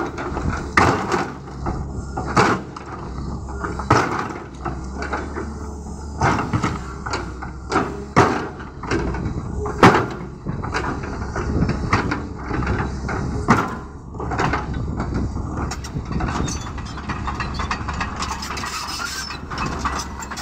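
Caterpillar hydraulic excavator's diesel engine running steadily while its steel bucket scrapes and knocks against stones in the trench, with many sharp clanks and rocks clattering at irregular moments.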